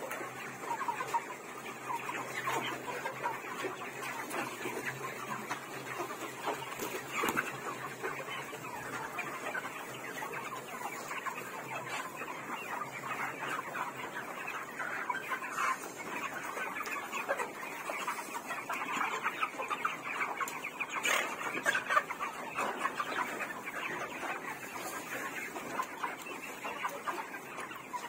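A large flock of chickens clucking continuously, many birds calling over one another.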